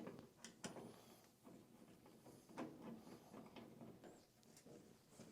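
Faint, scattered light clicks and small knocks of parts being handled and fitted at uneven intervals, close to near silence.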